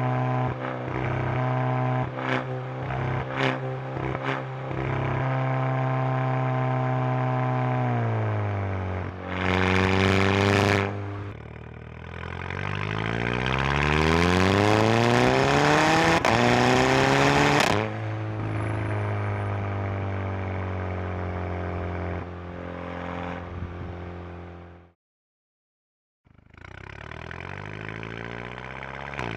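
Exhaust of a 2011 Volkswagen GTI Mk6's turbocharged 2.0-litre four-cylinder, heard through a microphone right at the exhaust tip: idling with a few sharp clicks early on, a short blip of revs about nine seconds in, then a longer rev that climbs for several seconds and drops back to idle. The sound cuts out for about a second near the end, then the engine is heard idling again.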